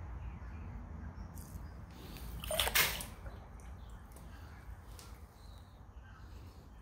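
A handful of silver shot dropped back into a stainless steel pot of water: one short splash and rattle about two and a half seconds in, over a low steady hum.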